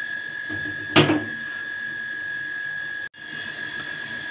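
A single sharp metallic click about a second in, as the whistle weight is set onto a pressure cooker's vent pipe, over a steady high-pitched whine. The sound drops out for a moment about three seconds in.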